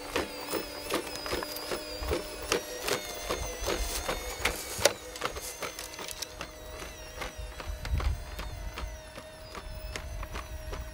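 Boston Dynamics' original hydraulically actuated Spot quadruped robot walking: a steady mechanical whirring tone from its power unit with frequent sharp clicks and footfalls. The hum shifts pitch about three seconds in, and the loudest click comes near the middle.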